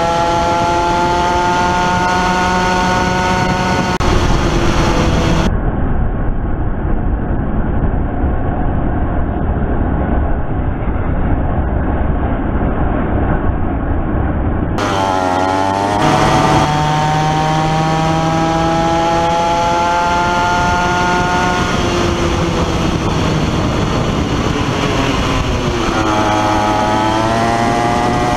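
Onboard sound of a Comer 50cc two-stroke kid kart engine at racing speed. Its pitch climbs steadily on the straights, drops when lifting for corners, and rises quickly again coming out of them. For several seconds in the middle the engine is lost under a dull, muffled rumble.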